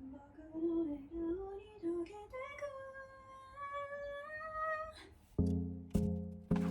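A woman's voice singing a short melodic phrase that ends on a long held note, followed about five seconds in by plucked acoustic guitar chords struck in a steady rhythm.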